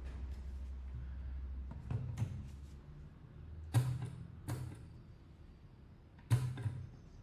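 Light knocks and clicks of tools and phone parts being handled on a work surface, coming roughly in pairs every two seconds or so, over a low hum that fades after the first two seconds.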